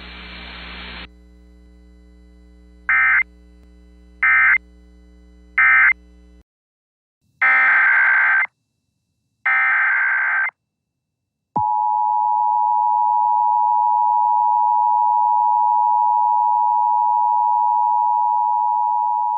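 Emergency Alert System signals: three short data bursts that close the previous alert, then two longer data-burst headers of the next alert, then the steady two-tone EAS attention signal that starts about two seconds later and holds to the end. A faint hum and hiss sit under the first bursts.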